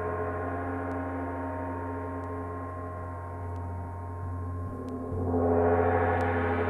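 Gong ringing with a dense shimmer of many overlapping tones over a steady low hum. About five seconds in it swells louder and brighter as it is played again.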